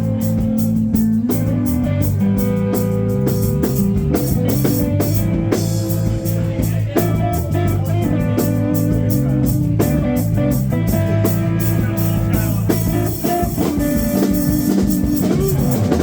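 Small rock band playing live: guitar over bass and a drum kit, with a steady beat of cymbal strokes.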